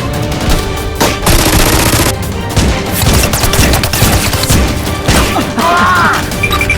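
Rapid gunfire sound effects in bursts of many quick shots, over background music.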